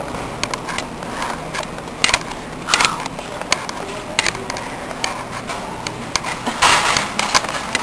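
Irregular clicking from a camera's wrist strap knocking against the camera body, which the uploader takes to be its cause, over steady background noise, with a short louder stretch of noise near the end.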